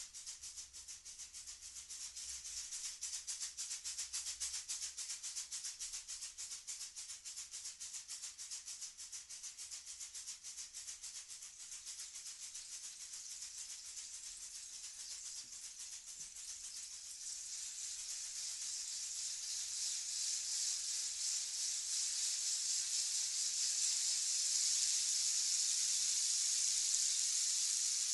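Chilean rainstick: a dense rattling hiss of falling pebbles. It pulses about twice a second at first, then past the halfway mark becomes a smoother, steady pour that grows louder.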